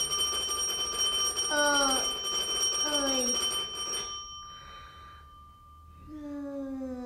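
A steady, high, bell-like ringing that holds for about four seconds and then fades away. Over it a voice gives two short falling moans, and another falling moan starts near the end.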